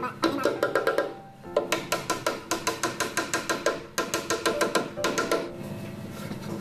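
Background music with a quick percussive beat, about five strikes a second, pausing briefly a couple of times.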